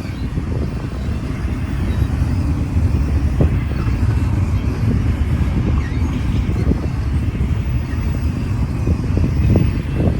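Intermodal freight cars of a Union Pacific train rolling slowly past, a steady loud rumble of steel wheels on the rails as the train slows down.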